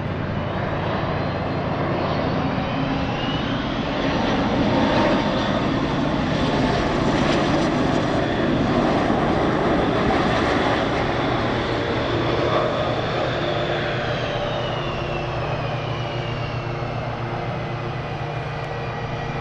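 PD-14 turbofan engines of an MS-21-310 airliner on a low gear-down pass, a continuous jet rumble with a high whine. It swells through the middle, then eases as the whine falls in pitch near the end.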